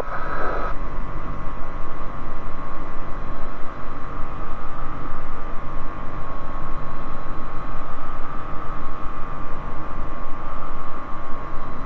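Bristell light sport aircraft's engine and propeller running steadily at full takeoff power in the climb just after lift-off, heard from inside the cabin as a constant drone with a steady high tone.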